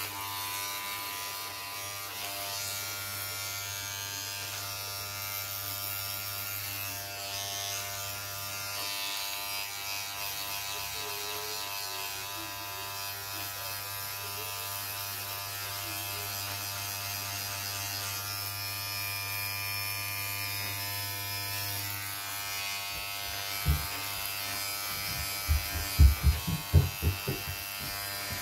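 Cordless electric hair clipper buzzing steadily as it trims a beard and moustache. Near the end, several loud low thumps, louder than the buzz, come in quick succession.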